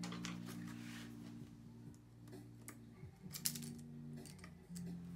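Light metallic clicks and ticks of small repair tools and tiny screws against the internals of an opened MacBook Pro, a handful of sharp clicks clustered in the middle, over a faint steady hum.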